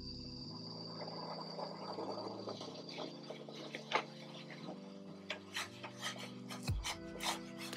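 A dry rubbing, rasping sound for about four seconds, then a run of sharp clicks and taps, over soft background music.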